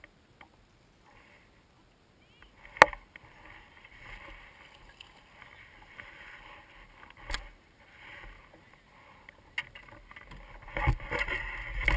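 Knocks and handling noise in a small fishing boat over a faint hiss: one sharp knock about three seconds in, a smaller one about seven seconds in, and a run of louder knocks and rustling near the end.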